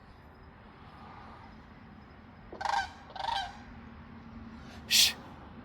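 Goose honking twice in quick succession, a little before the middle. Near the end comes a short, sharp hiss, the loudest sound of all.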